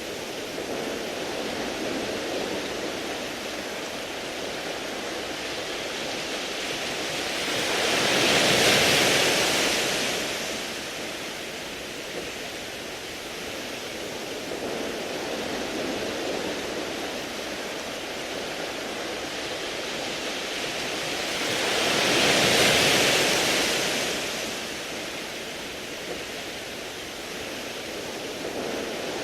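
Sea waves washing over a beach of round pebbles: a steady hiss of surf, with two bigger waves swelling up and dying away, one about nine seconds in and one about twenty-two seconds in.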